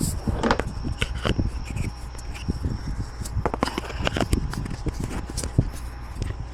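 Camera handling noise: irregular knocks, clicks and rustles against the microphone as the camera is moved and fitted onto a head mount.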